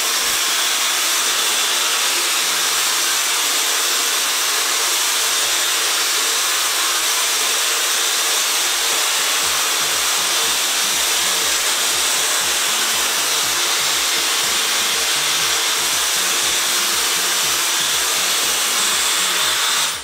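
Dyson Supersonic hair dryer running steadily, a loud even rush of air blown at hair, switched off near the end.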